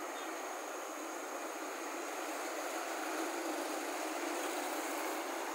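Road traffic moving slowly: a fire engine's engine with a car and a motorcycle passing, a steady blend of engine and tyre noise that grows a little louder about halfway through.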